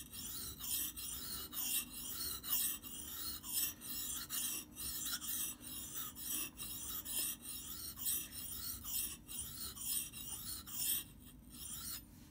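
Steel axe blade being stroked back and forth on a wet whetstone: a gritty scraping rasp about twice a second, stopping near the end.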